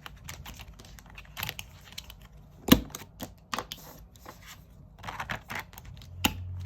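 Irregular clicks and taps of objects being handled on a desk, with one sharper knock a little under three seconds in.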